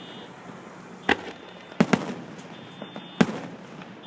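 Aerial fireworks shells bursting: four loud bangs, two of them close together near the middle, with a few fainter pops between them, each bang trailing off in a short echo.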